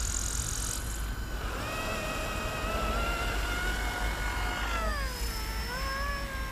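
FW450 450-size electric RC helicopter's motor and rotors whining as it lifts off and climbs. The whine rises a little about a second and a half in, holds steady, then dips and partly recovers near the end.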